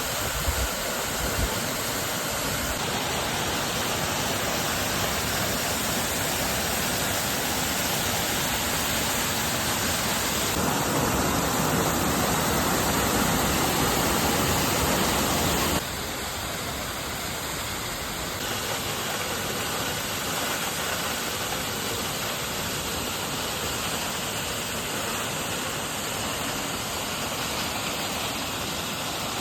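Waterfall rushing: a steady hiss of falling water that changes in loudness and tone suddenly several times, fullest and loudest from about ten to sixteen seconds in.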